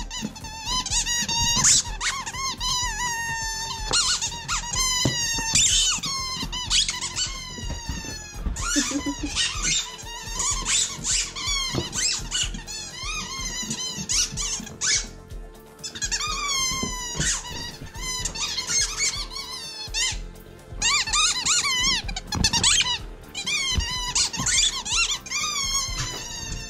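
Rubber chicken squeaky toy squealing over and over as a husky bites and chews it: many falling squeals in quick succession, with brief pauses between bouts.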